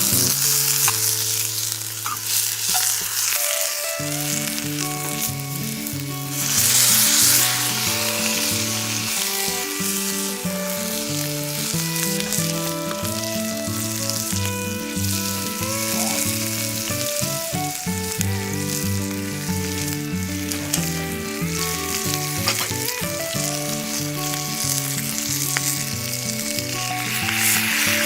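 Hamburger steak sizzling in a hot frying pan, swelling louder about seven seconds in and again near the end, under background music with a melody.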